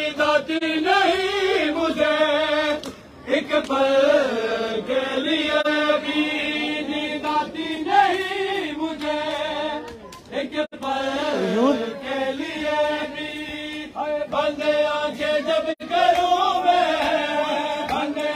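A group of men chanting a noha, a Shia lament, together in a sustained sung chant. Scattered sharp slaps of hands on bare chests (matam) are heard through it.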